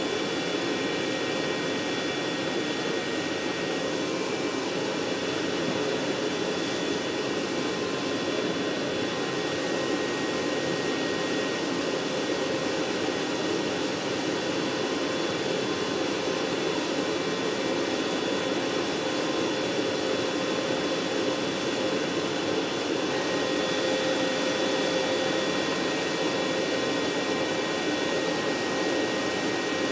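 AH-64 Apache's auxiliary power unit running on the ground: a steady turbine whine with several high, even tones over a constant rushing hiss.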